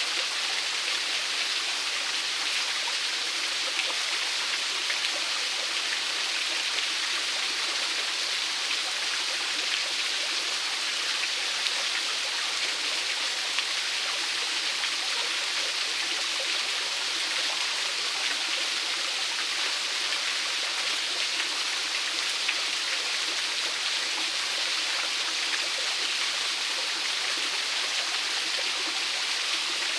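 Small waterfall splashing steadily onto rocks, an even rushing hiss with no breaks.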